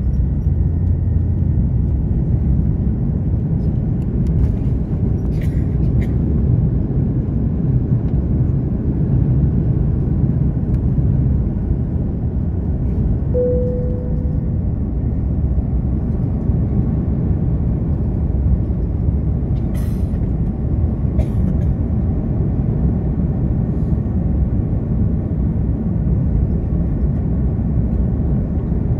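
Jet airliner heard from inside the cabin during the end of the takeoff roll and the initial climb: the engines and airflow make a loud, steady low rumble. A short steady tone sounds about halfway through, and there are a few faint clicks.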